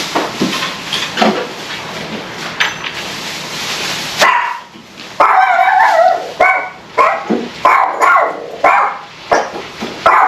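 Domestic dog barking loudly and repeatedly, a bark roughly every two-thirds of a second from about four seconds in, after a stretch of steadier background noise. It is the dog's alarm barking at strangers at the door.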